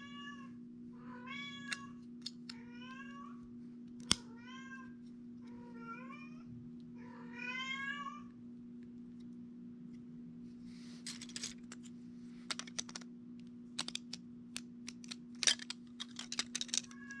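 An animal calling six times in the first half, each call a short rising cry, over a steady low hum. Then, in the second half, LEGO bricks click and rattle sharply between the hands as pieces are pressed together.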